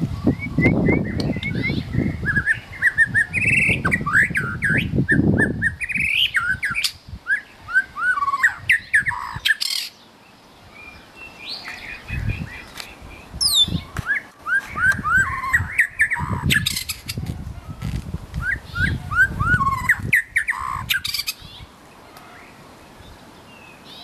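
White-rumped shama singing: fast runs of short, curving whistled notes, in two long phrases with a pause about ten seconds in and the song stopping near the end. A low rumble sits under the first six seconds and under much of the second phrase.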